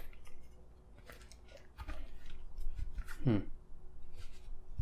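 Scattered small clicks and crisp rustles of hands searching for cash, with a short sound that slides steeply down in pitch about three seconds in.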